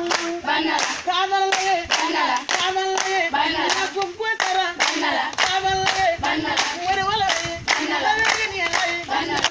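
A group of girls and women singing a Jengo dance song together over a steady beat of hand claps, about two claps a second.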